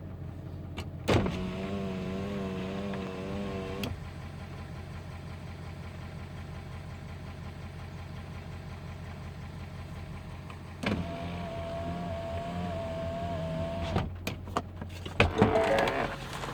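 A steady low hum throughout, with two stretches of a wavering, motor-like whine of about three seconds each. The first starts about a second in, the second about eleven seconds in. A few clicks follow near the end.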